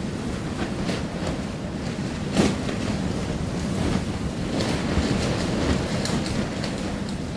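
Storm wind blowing hard and steadily, with scattered debris clattering and knocking throughout and a louder hit about two and a half seconds in.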